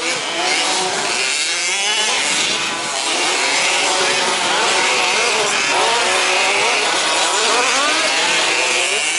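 Several 1/5-scale two-stroke petrol RC trucks running together, their engines revving up and down in overlapping rising and falling whines.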